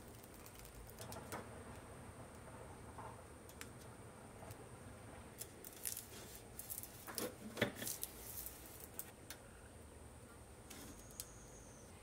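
Hands peeling the backing off a self-adhesive rubber bumper strip and pressing it onto the edge of a metal mesh radiator guard: faint rustling, peeling and light taps, with a busier cluster of louder scrapes and clicks around the middle.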